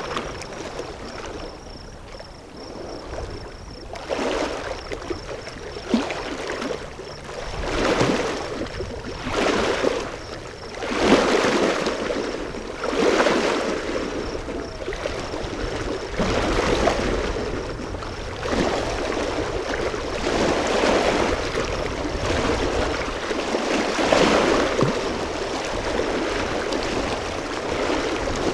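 Water splashing and washing in repeated surges, one every second or two, starting about four seconds in.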